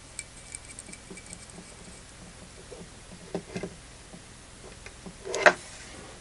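Faint small clicks and ticks of hands handling metal SMA connectors as a terminator is tightened onto a power divider port, with a louder knock and brushing rustle of handling near the end.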